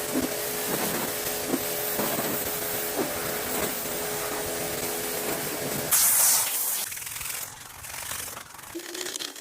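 A machine runs steadily with a held hum. About six seconds in, a loud spray hiss starts suddenly, then drops to a quieter, uneven hiss.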